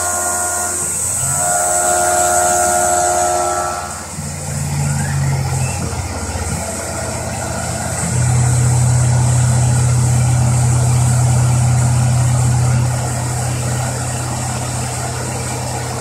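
Tormach PCNC 1100 CNC mill running, its end mill cutting a metal block: a steady machine hum with a whine over it for the first few seconds. It gets louder about eight seconds in and eases off again near thirteen seconds, as the cutting load changes.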